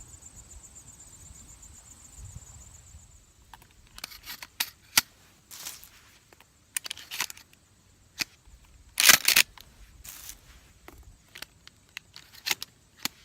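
Crickets trill steadily; about three and a half seconds in, the trill gives way to a run of sharp clicks, taps and short rustles from handling gear or the phone close to the microphone, loudest about nine seconds in.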